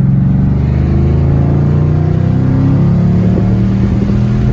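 Car engine running hard at high revs, a loud steady drone whose pitch shifts slightly.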